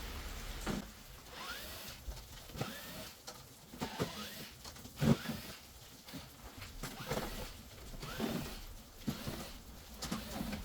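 Hands working on a flat-screen TV's plastic back cover to open the set: irregular clicks and knocks with short squeaks, one sharper knock about halfway through.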